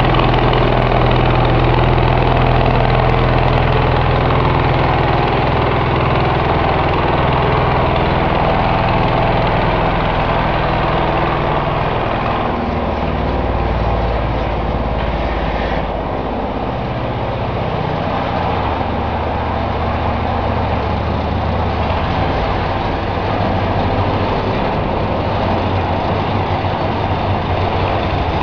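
An engine idling steadily close by, a constant deep running hum with no revving.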